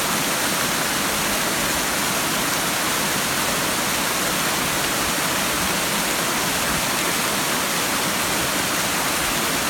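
Water pouring over the lip of Hana-no-taki waterfall: a steady, unbroken rush, strongest in the high hiss range.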